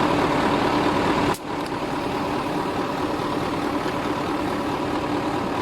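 Mercedes Actros truck's diesel engine idling steadily, running the air-conditioning compressor. The sound drops out abruptly for a moment about a second and a half in, then carries on a little quieter.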